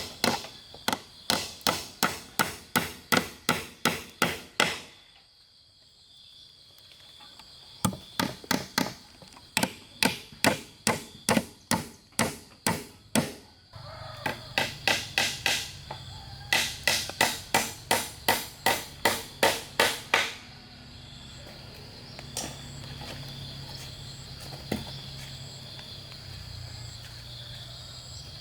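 Hand tool striking wood in quick runs of blows, about two to three a second, with short pauses between runs; the blows stop about twenty seconds in. A steady high chirr of insects runs throughout.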